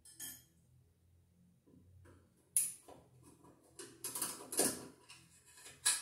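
Screwdriver and metal electrical box clinking and scraping as the box is unscrewed and worked loose from the wall: scattered short metallic clicks, the sharpest about two and a half, four and a half and six seconds in.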